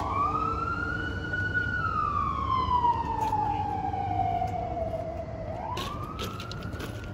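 Emergency vehicle siren wailing: one slow wail that rises, falls gradually over about four seconds, and rises again near the end.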